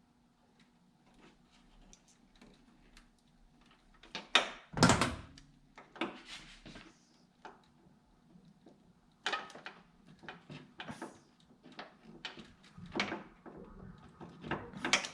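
Irregular clicks and knocks of a hand crimping tool and small metal terminals being worked, as a wire terminal is crimped again because it wasn't squeezed tight. The loudest knocks come about four to five seconds in.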